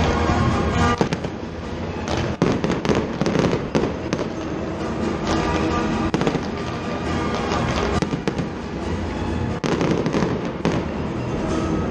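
Fireworks display: repeated bangs and crackling bursts in quick succession, with music playing underneath.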